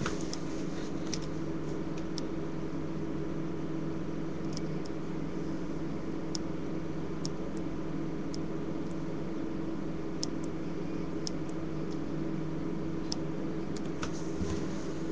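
A steady machine hum, like a small motor or fan running, with a few faint scattered ticks.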